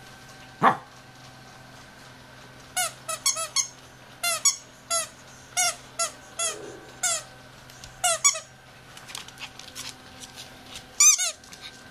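Dog's squeaky toy squeaked over and over: about a dozen short squeaks, each falling in pitch, in ones and quick pairs, with a loud double squeak near the end. A single knock comes about half a second in.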